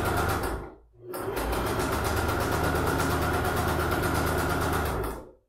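Electric domestic sewing machine stitching a seam through layered fabric, running steadily. It stops briefly about a second in, starts again, and stops near the end.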